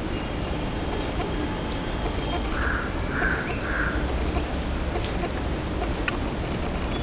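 A bird calling three times in quick succession a little before halfway, over steady background noise.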